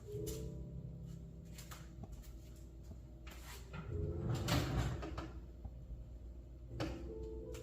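Kitchen handling noises: knocks and clicks of a refrigerator door and food containers being opened and moved, with a busier stretch of clatter about four seconds in.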